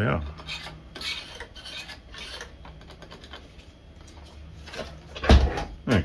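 Paper dust bag rustling and hard plastic clicking and tapping as the bag is pushed and fitted into the bag compartment of a Bosch GL-30 vacuum cleaner, with a louder knock about five seconds in.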